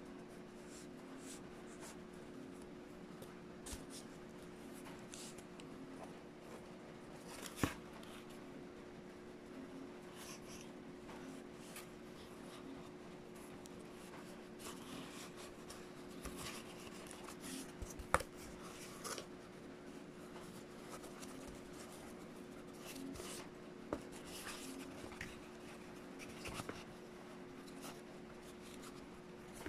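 Faint rustling, rubbing and scraping of corrugated cardboard pieces being handled, with scattered small taps and two sharper clicks, the louder ones about 8 and 18 seconds in. A steady low hum runs underneath.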